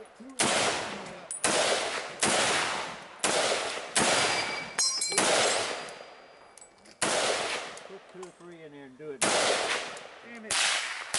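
Semi-automatic rifle shots from an M1 rifle and an AR-15 in .223: about nine sharp cracks, each with a short echoing tail, roughly a second apart at first and then spaced further. A brief metallic ring comes about five seconds in.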